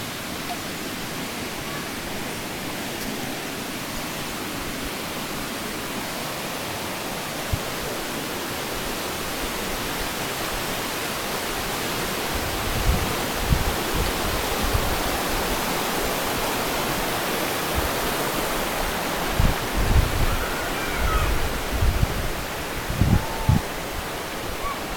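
Steady rushing noise that grows a little louder about halfway through, with irregular low thumps on the microphone in the second half.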